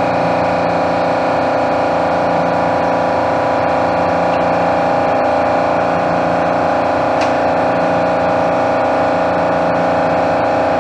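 Shop air compressor running steadily, just kicked on, over the steady drone of an exhaust fan.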